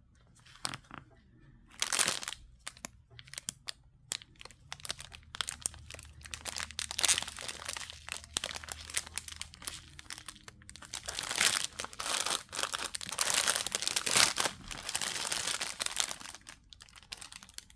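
Clear plastic bags of square diamond painting drills crinkling as they are handled, in irregular bursts that grow busier in the second half.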